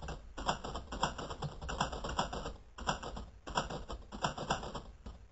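Typing sound effect: a quick, uneven run of key clicks with a few short pauses, as on-screen text is typed out.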